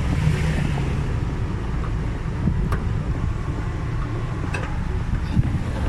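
Steady low rumble of road and engine noise inside a moving car, with a few faint clicks.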